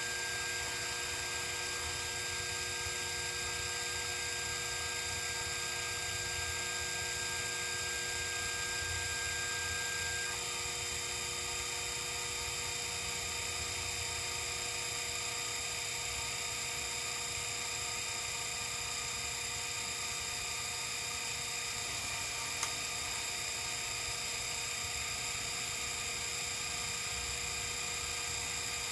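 Sherline 5000 CNC mill running under program control, a steady hum made up of several high tones. About ten seconds in, one tone drops out and a higher one comes in.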